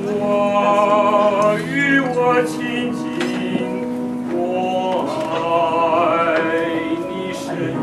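A baritone singing slow, long-held phrases, accompanied by an electronic keyboard playing sustained chords.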